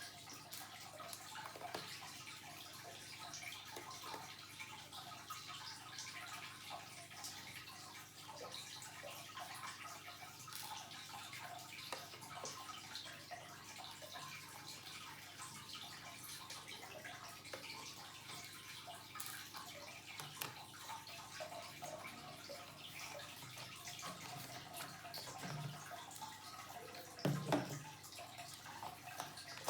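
Faint, irregular small clicks and taps, the handling noise of working on a laptop by hand, over a steady low hum, with a louder knock about 27 seconds in.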